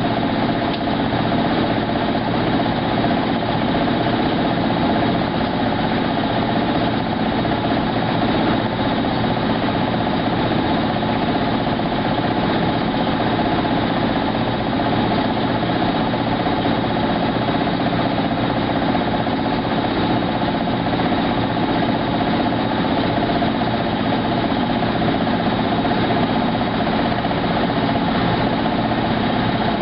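Maytag SoftMount commercial washer spinning at a steady speed: a constant whir with several steady motor and drum tones, no pauses and no change in speed.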